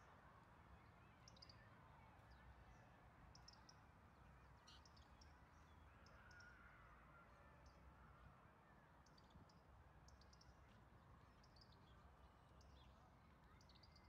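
Near silence: faint outdoor park ambience with small birds chirping now and then over a low steady rumble.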